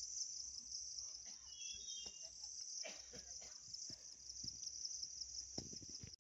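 A steady, high-pitched chorus of insects trilling in the forest, with a few faint knocks and rustles.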